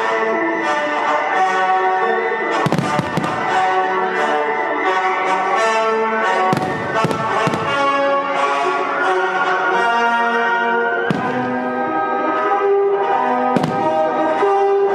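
Orchestral music led by brass plays loudly over a fireworks display, with sharp shell bursts cutting through it about every three to four seconds.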